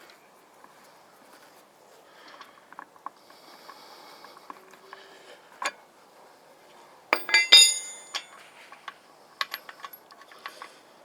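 Metal tools and hardware clinking and clanking during a wheel change: scattered small clicks, then a loud burst of ringing metal clanks about seven seconds in.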